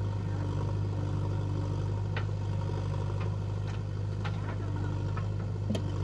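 Diesel engine of a JCB 3DX backhoe loader running steadily under load as the arm lifts and swings a full bucket of mud. Several short metallic clanks from the boom and bucket sound from about two seconds in, the sharpest near the end.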